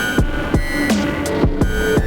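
Improvised electronic music from analog synthesizers over a drum machine: a steady beat of struck drums whose pitch drops quickly, under held synth tones and short gliding notes.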